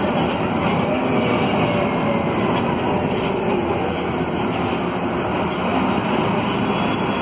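Volvo B9SALF low-floor city bus under way, heard inside the passenger cabin: its rear-mounted Volvo D9A diesel engine and ZF Ecomat automatic gearbox running steadily under road noise.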